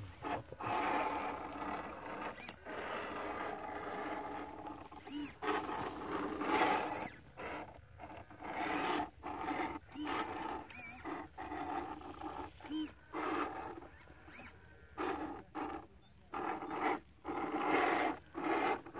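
Electric motor and gear drivetrain of an RC rock crawler whining in short stop-start bursts as it is throttled up a steep rock face, with pauses between them.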